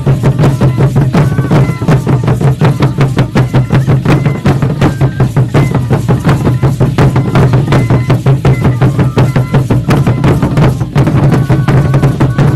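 Aztec dance drumming, most likely on huehuetl drums: a fast, steady beat of closely spaced strikes over a deep, sustained boom, keeping time for the dancers without a break.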